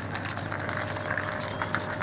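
Outdoor background noise with a steady low hum and scattered light clicks and knocks.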